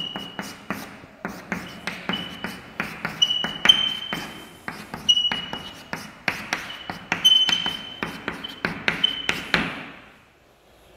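Chalk writing on a chalkboard: quick taps of the chalk against the board with short high squeaks, several a second, stopping about a second before the end.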